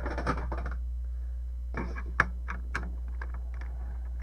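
Irregular light clicks and taps of a screwdriver against a Commodore 64's plastic case as it is handled and opened, the loudest click a little after two seconds in, over a steady low electrical hum.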